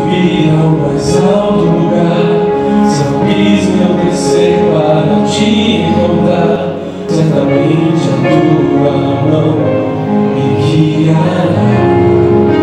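Live worship music: a band playing a slow song, with voices singing.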